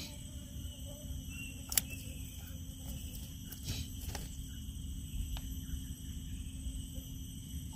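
Outdoor insect chorus, a steady high-pitched chirring, over a low steady rumble, with a few sharp clicks about two, four and five seconds in.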